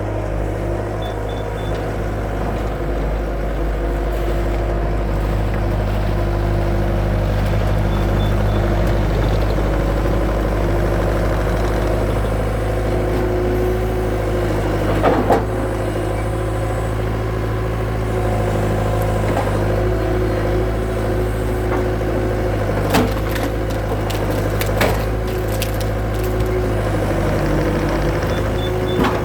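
Skid steer engine running steadily at a constant speed, with a few sharp knocks partway through and near the end.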